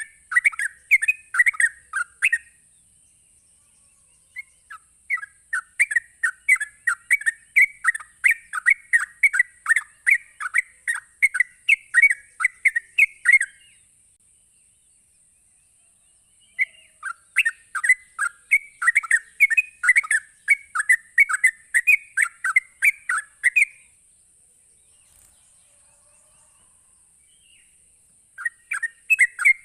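Yellow-vented bulbul (trucukan) singing its rapid chattering 'ropel' song: long runs of quick repeated chirping notes, broken by pauses of a few seconds.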